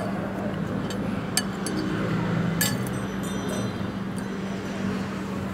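Spoon and fork clinking against a dish while eating: a few sharp, separate clinks over a steady low hum.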